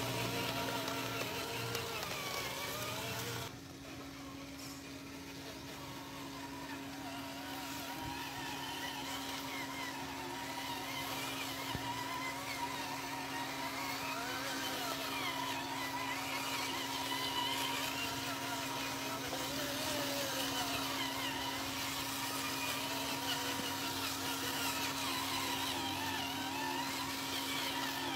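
Electric drive motor and gearbox of a radio-controlled scale dump truck whining, the pitch rising and falling over and over with the throttle, over a steady hum. The sound drops abruptly a few seconds in, then builds back up.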